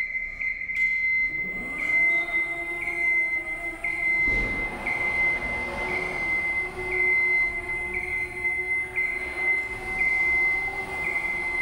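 Genie GS-2632 electric scissor lift raising its platform: the hydraulic pump motor whines, rising in pitch about a second and a half in and then running steadily, while the motion alarm beeps about once a second. A brief low thump comes about four seconds in.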